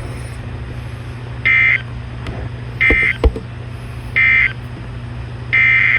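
Emergency Alert System digital data tones: three short, identical, raspy bursts about 1.4 s apart, the end-of-message code that closes a flood warning. Near the end a longer burst of the same tone begins, the header of the next alert. A steady low hum runs underneath.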